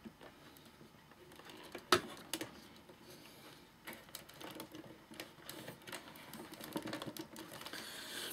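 Clicks, light knocks and rustling of an amplifier's circuit board and chassis parts being handled, with one sharp click about two seconds in.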